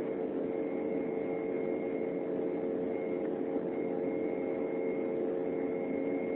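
Cabin noise inside an Embraer 195 climbing after takeoff: a steady drone from its GE CF34-10E turbofan engines and the rushing air, with a constant whine on top.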